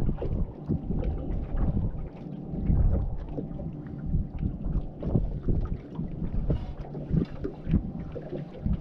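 Wind buffeting the microphone in uneven gusts, with water slapping against the hull of a slowly drifting fishing boat.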